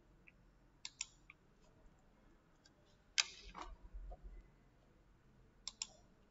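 Faint, scattered sharp clicks of a computer mouse: a few about a second in, a louder one around three seconds in with a short rustle after it, and two quick clicks near the end.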